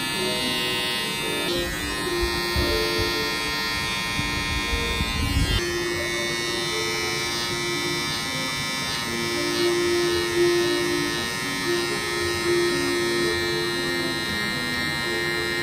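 Cordless electric hair trimmer buzzing steadily while its blade cuts short hair at the nape and around the ear in a fade.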